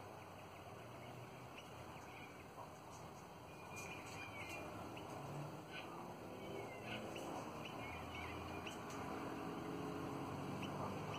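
Twenty-eight parrots (Australian ringnecks) giving short, soft chirps now and then while feeding on tipu seeds. A low rumble grows louder over the last few seconds.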